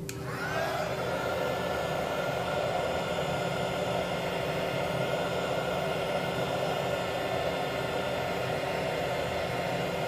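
Small 220 V, 300 W hot air gun for heat-shrink tubing switching on, its fan whining up to speed over about the first second. It then blows steadily with an even rushing hiss while shrinking heat-shrink tubing over a wire joint.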